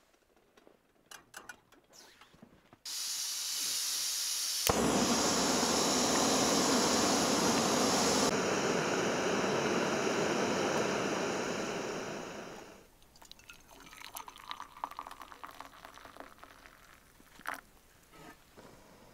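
Gas camp stove on a screw-on fuel canister: gas hisses as the valve is opened, a click about two seconds later lights it, and the burner runs with a loud steady hiss for about eight seconds before dying away. Afterwards, faint clinks and coffee being poured from a stainless percolator into a mug.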